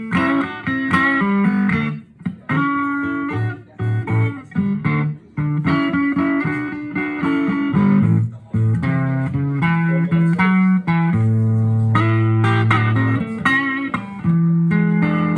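Electric guitar played through a guitar amplifier, in bluesy lead lines and chords. Short, choppy phrases come first, then longer held chords and notes in the second half.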